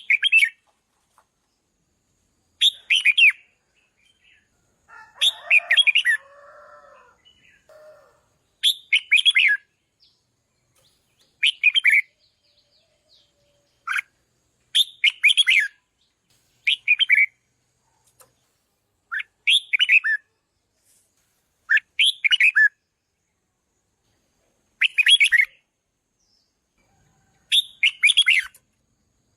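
Red-whiskered bulbul singing short, bright whistled phrases, one every two to three seconds. A fainter, lower sound runs under the song about five seconds in.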